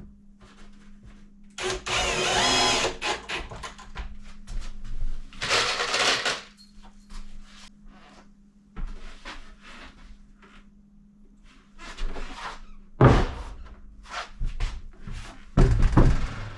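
Wooden cabinet being assembled: two short runs of a power drill, scattered knocks of wooden parts, and two hard thumps, the loudest about thirteen seconds in and near the end.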